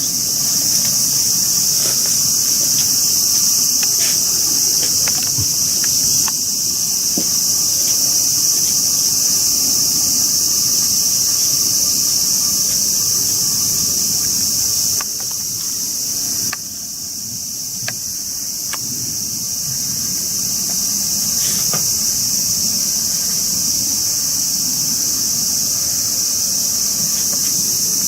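Steady high-pitched shrilling of an insect chorus, dropping in level a little past the middle and then building back.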